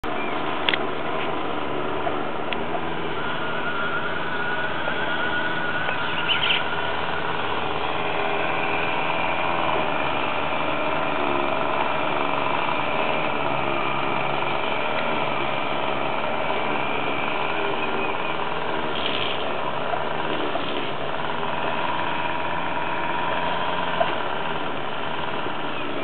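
Lawn mower engine running steadily, with a few sharp taps now and then: a bird pecking at its own reflection on a car.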